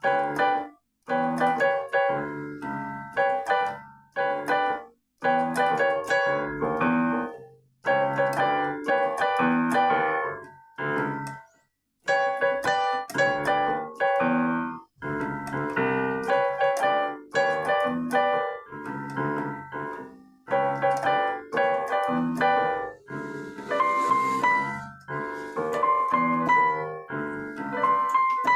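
Electronic keyboard played solo with a piano-like electric piano voice: chords and melody phrases that cut off abruptly every few seconds before the next phrase starts.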